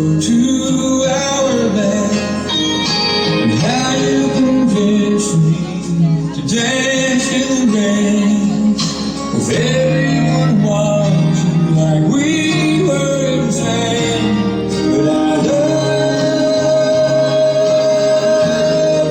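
Waltz music with a male voice singing the melody over instrumental accompaniment.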